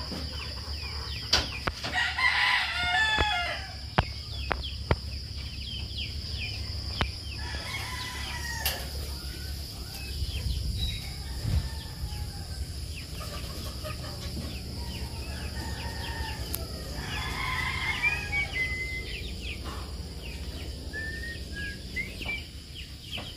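A rooster crowing twice, once about two seconds in and again some fifteen seconds later, with chickens clucking between.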